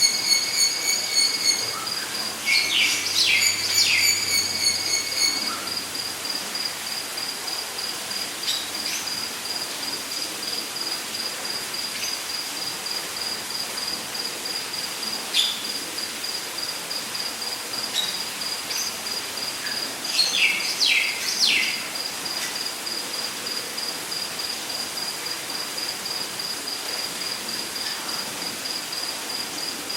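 Rainforest ambience: an insect trills steadily in even high-pitched pulses. Birds call over it, with a held whistled note in the first few seconds and quick downward-sweeping notes about three seconds in and again around twenty seconds. A steady hiss runs underneath.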